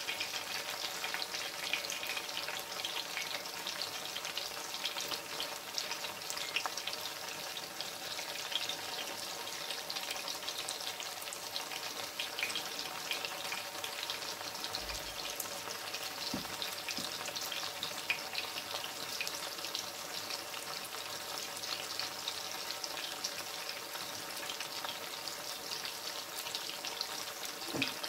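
Breadfruit slices deep-frying in oil in a stainless steel pot: a steady sizzle with dense fine crackling.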